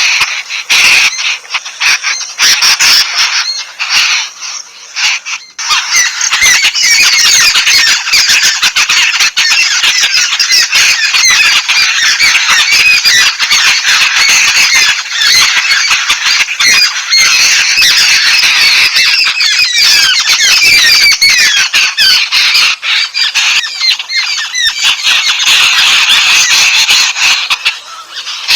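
A flock of yellow-billed babblers chattering: many harsh, squeaky calls overlapping, patchy at first, then a dense unbroken chorus from about six seconds in.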